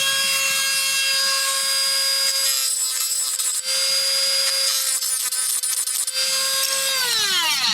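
Dremel rotary tool running at a steady high pitch while grinding away the factory-mushroomed end of a diecast car's axle, then winding down with falling pitch near the end.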